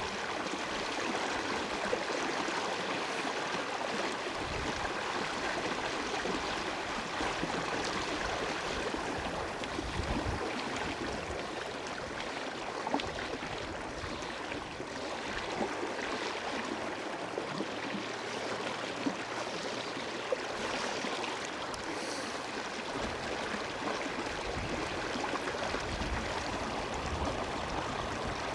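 River water flowing steadily, a constant rushing hiss, with a few low thuds scattered through it.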